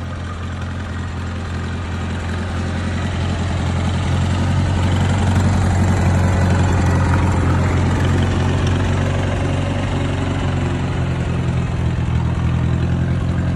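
Massey Ferguson loader tractor's engine running at a steady speed as the tractor moves slowly along, growing louder over the first several seconds as it comes up close, then holding steady.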